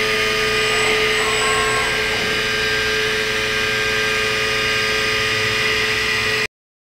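Robotic sand-milling cell running: a steady machine hum and whine made of several held tones over a hiss, which cuts off suddenly near the end.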